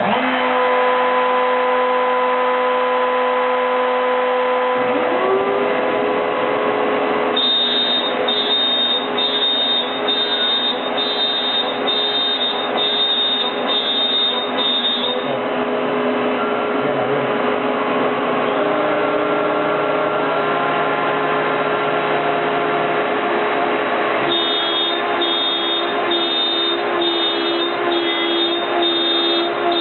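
CNC router spindle with a 1/4-inch bit running loud and steady while cutting MDF. It comes on sharply at the start, its whine drops a little in pitch about five seconds in, and a high pulsing tone comes and goes twice.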